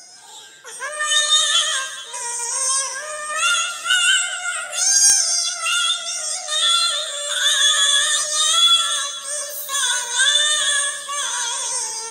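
High-pitched, synthetic-sounding singing voice carrying a sholawat melody in long, wavering phrases that dip and rise in pitch, with short breaks between them.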